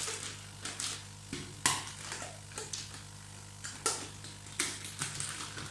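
Plastic fish bag crinkling and rustling in short, irregular bursts as its neck is twisted and tied shut, over a steady low hum.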